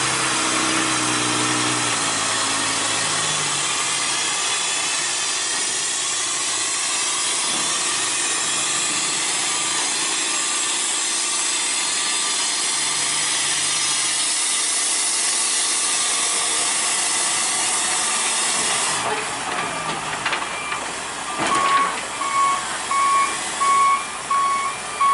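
A loud, steady hiss over a low engine rumble from heavy vehicles, falling away about 19 seconds in. Near the end a reversing alarm starts beeping repeatedly, about one and a half beeps a second.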